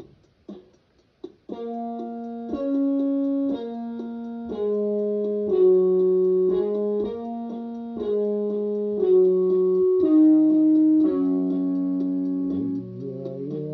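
Electronic keyboard playing an instrumental passage of a song: held notes over sustained chords, each changing about once a second, starting after a quiet second and a half. A sung voice comes back near the end.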